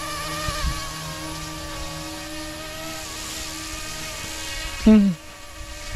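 YXZNRC F09-S RC helicopter's electric motor and rotors whining steadily in flight, the pitch wavering slightly. About five seconds in, a short voice sound drops quickly in pitch and is briefly the loudest thing.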